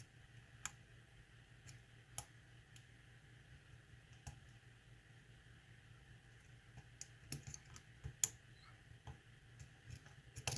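Faint, irregular clicks of a lock pick and tension wrench working the security pins inside a lock, a few scattered ticks that come thicker and louder about three quarters of the way through, over a low steady hum.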